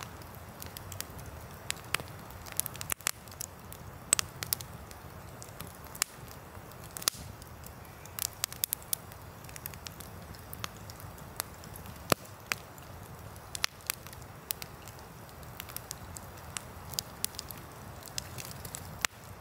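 Wood campfire burning, crackling with irregular sharp pops and snaps, a few of them much louder than the rest, over a steady low rush.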